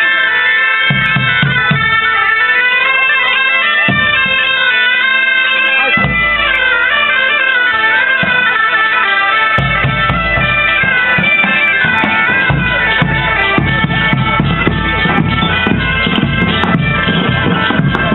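Several medieval bagpipes playing a tune in unison over a steady drone. A large drum beats along, most steadily in the second half.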